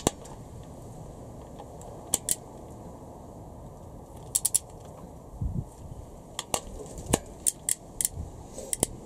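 Scattered sharp metallic clicks from a torque wrench and socket being fitted and ratcheted on the connecting-rod nuts of a Honda B18C4 engine. The clicks come singly and in small groups, closer together in the last few seconds, with a dull knock about halfway.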